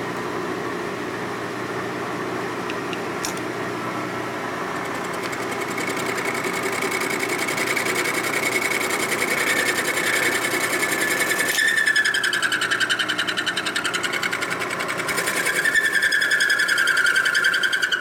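Milling machine running with its cutter taking a cut in the welded-up aluminium case boss of a Harley shovelhead: a steady machining whir with a fine rapid chatter and a high squeal. The sound grows louder about a third of the way in as the cut deepens.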